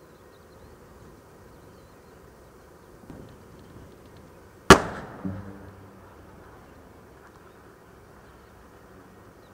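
A single loud bang about halfway through, followed by a rolling echo that dies away over about a second, over a steady low background hiss.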